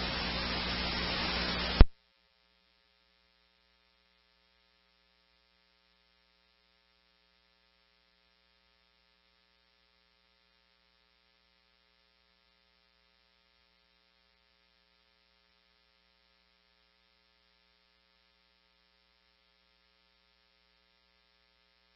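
Radio scanner open-channel static hiss at the tail of a transmission, cut off by a short squelch burst about two seconds in. Then near silence with only a faint hum.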